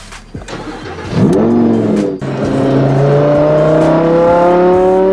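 Lamborghini Huracán V10 being started with the button under the red flip cover. About a second in it fires with a loud rev flare that rises and settles, then it pulls away with the engine note climbing steadily as it accelerates.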